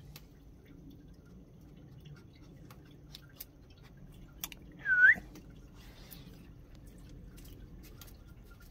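A single short whistle, about five seconds in, dipping and then rising in pitch, over a quiet background with faint scattered ticks.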